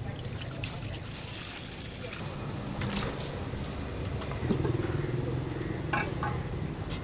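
Stainless steel pots and ladles clinking, a few short knocks about three seconds in and twice close together near six seconds, over a steady low hum.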